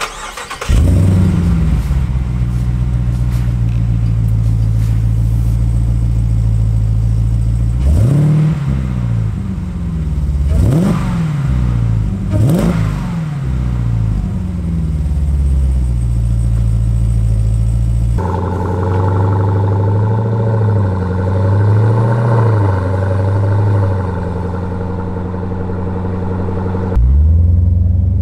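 Supercharged 6.2-litre Hemi V8 of a Jeep Grand Cherokee Trackhawk running through a new Magnaflow cat-back exhaust. It starts with a loud flare about half a second in and settles to a steady idle, then takes three quick throttle blips. About two-thirds of the way through the tone changes, and near the end the revs climb again.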